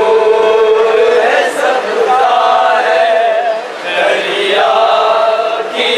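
A man's voice chanting a noha, an Urdu lament, unaccompanied, in long drawn-out notes with a short pause about four seconds in.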